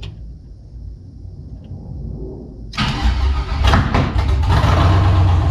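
LS-swapped V8 in a G-body Cutlass cranking over and firing about three-quarters of the way through, with a couple of sharp pops as it catches, then running loud and rough. This is a first start on a freshly installed Holley Terminator X EFI setup, and the popping is a sign it is not yet running right.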